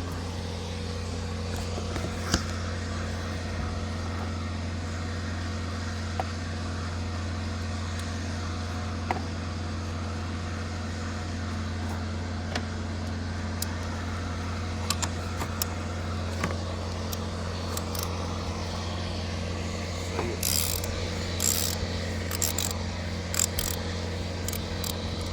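Steady low hum with a few isolated sharp clicks, then a run of metallic clinks and rattles near the end as tools work on the car battery terminal to disconnect it.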